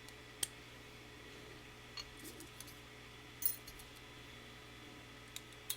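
A few sparse, sharp metallic clicks and clinks of small lock parts and tools being handled while a lock cylinder is taken apart, each a single short tick.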